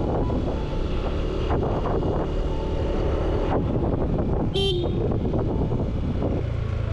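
Steady riding noise from a motor scooter on the road, a dense low rumble of wind and traffic. About four and a half seconds in, a vehicle horn gives one short toot.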